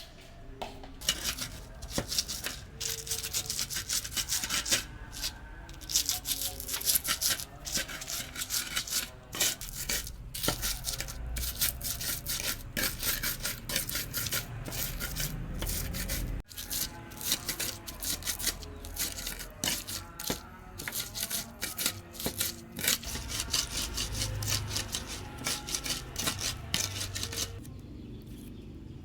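Rapid, repeated scraping strokes in runs that start and stop, with a brief break about halfway through.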